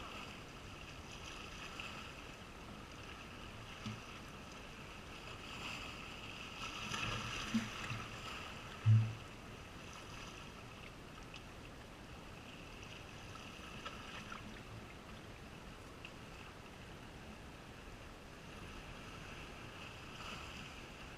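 Steady, faint seaside background of calm sea and light wind, with a few low knocks about seven to nine seconds in, the loudest a short dull thump near nine seconds.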